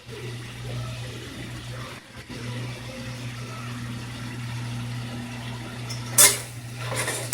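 Shrimp, spinach and parsley cooking in a pan on the stove, a faint steady hiss over a low hum; about six seconds in, a utensil clatters against the pan, and again near the end.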